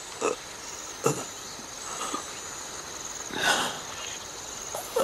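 A wounded man's short, pained gasping breaths, several in a row, the loudest and longest about three and a half seconds in. Under them runs a steady high drone of insects.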